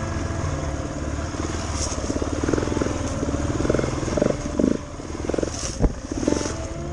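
Motorcycle engine running at low speed over a bumpy dirt trail, with several brief throttle surges and a sharp knock near the end.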